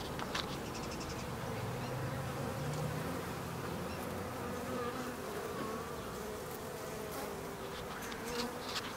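Honey bees buzzing in flight around the hives and the camera, a steady, wavering hum, with a couple of light clicks near the start and the end.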